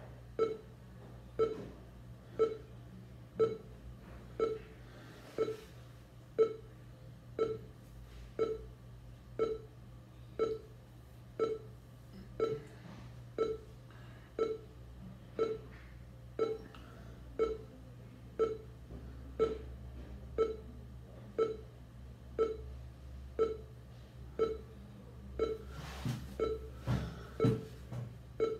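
Short low beeps from the NVDA screen reader's progress indicator, sounding about once a second through the computer's speaker, the sign that the portable copy is still being created. Near the end the beeps come about twice a second, and there is a brief rustle or knock.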